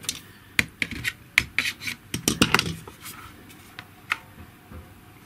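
The plastic hinge parts of a GHD hair straightener clicking and scraping as they are worked apart by hand: a quick run of sharp clicks over the first three seconds, then one more click about four seconds in.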